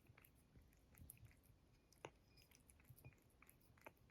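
Faint chewing: soft, irregular clicks and smacks at near-silent level, one slightly sharper click about two seconds in.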